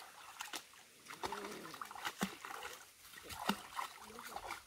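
Scattered small splashes of people and Fila Brasileiro puppies wading in shallow muddy creek water, with a few brief faint whines.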